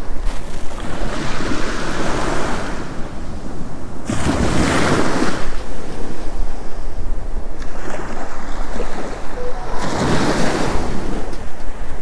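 Small sea waves breaking and washing up a sandy shore: three surges of surf hiss, the strongest about four seconds in, over a low rumble of wind on the microphone.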